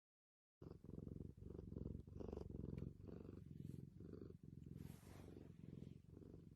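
Domestic cat purring, starting about half a second in, with a low rumble that rises and falls with each breath.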